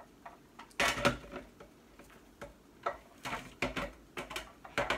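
Hard plastic parts of a Black & Decker food processor clicking and knocking as they are handled and fitted against the base: a string of short, sharp clicks and taps, the loudest cluster about a second in.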